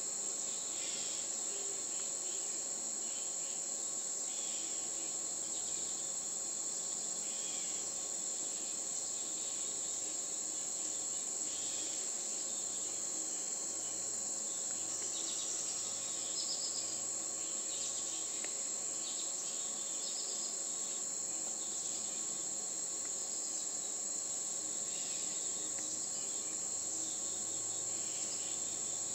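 Insect chorus making a steady, unbroken high-pitched trill, with faint short chirps scattered through it.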